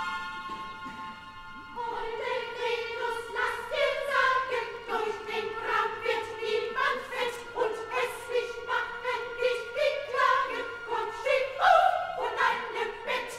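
Opera chorus with orchestra, singing a quick line of short, detached syllables mostly on one repeated note; it comes in about two seconds in, after a quiet moment.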